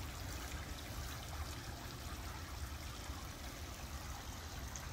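Water running steadily from a pump-fed garden bird-bath fountain.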